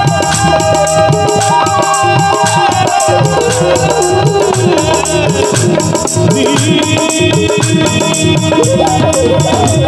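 Live devotional bhajan music: harmonium and electronic keyboard carry the melody over tabla, with a steady shaker-like rattle keeping the beat.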